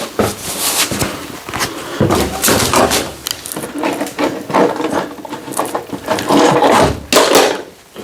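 Irregular knocks, scrapes and rattles of objects being handled and moved, with no steady machine sound.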